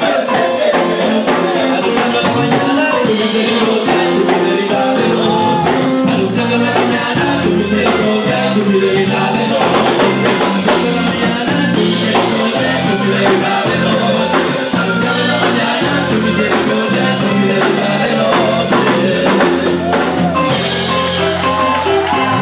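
Live worship band playing an upbeat Latin-style chorus with drums and percussion, steady chords underneath, and men's voices singing into microphones at times.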